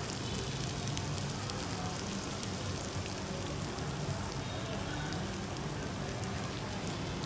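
Pan-fried sturgeon pieces sizzling in a frying pan just taken off the charcoal heat: a steady, soft crackle.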